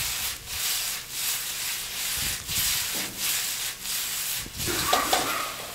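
Vegetables sizzling in a hot wok as it is tossed and shaken over the gas flame, the food swishing across the pan in repeated strokes.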